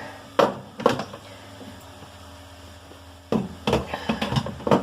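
Plastic dishwasher filter being fitted back into the bottom of the tub: two sharp knocks in the first second, then a run of clicks and knocks near the end, over a steady low hum.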